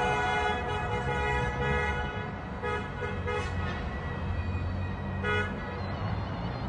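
Car horns honking in short toots, a cluster of them about three seconds in and one more a little after five seconds, over the low rumble of a line of cars moving slowly.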